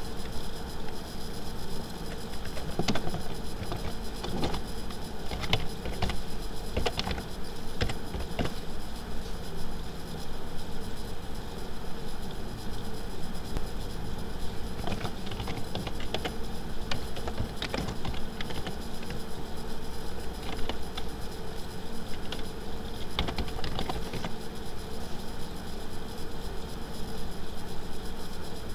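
Steady electrical hum and hiss, with scattered clicks of computer keyboard keys being typed.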